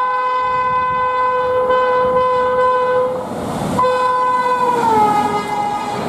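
Rajdhani Express locomotive's horn sounding a long steady chord, breaking off about three seconds in, then blowing again and dropping in pitch as the locomotive passes at speed. The rushing of the passing coaches rises near the end.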